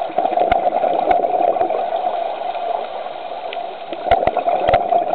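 Underwater sound picked up by a diver's camera: a steady muffled rush of water with gurgling, and a few sharp clicks, several in the first two seconds and a cluster near the end.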